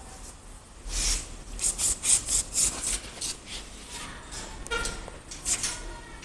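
Handling noise from assembling a metal bunk bed frame: a quick run of scraping and rustling sounds about a second in, then a few more near the end as the parts and bolts are handled.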